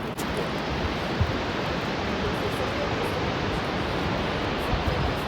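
A steady, loud rushing noise, even across the range and flickering in the low end.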